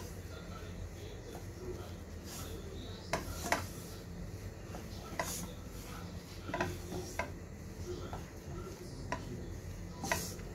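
Wooden spatula scraping and knocking against a non-stick pan as it stirs and mashes a stiff flour-and-water dough, with irregular sharp taps about once a second.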